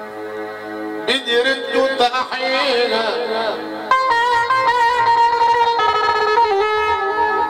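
Middle Eastern melody played on an electronic keyboard (Arabic org), improvised, with sliding, bending notes and long held tones.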